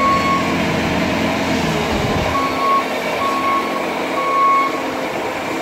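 Bobcat compact track loader's diesel engine running while its backup alarm sounds repeated high beeps, one right at the start and three more in the second half.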